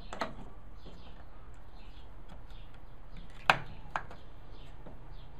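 Two sharp knocks about half a second apart, from the workpiece and table-saw tenon jig being handled, over a faint steady hum.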